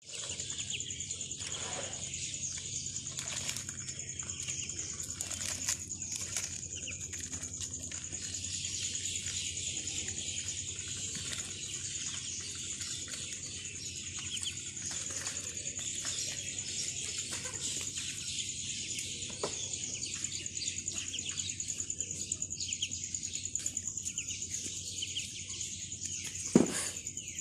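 A flock of ducklings peeping continuously as they feed, many short high calls overlapping, over a steady high whine. Near the end comes one loud short sound that falls in pitch.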